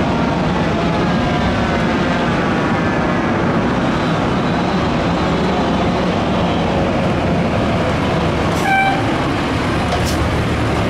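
Fire engine's diesel engine running loudly as the truck pulls up close, with faint tones sliding down in pitch early on and a short horn toot near the end.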